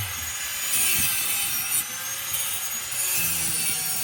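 Handheld power tool cutting: a steady high-pitched whine over a rasping hiss, dipping briefly now and then as the cut bites.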